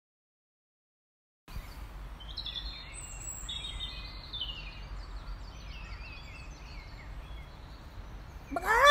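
Silence for about a second and a half, then a birdsong ambience: several small birds chirping over a low steady rumble. Near the end a loud pitched sound glides upward.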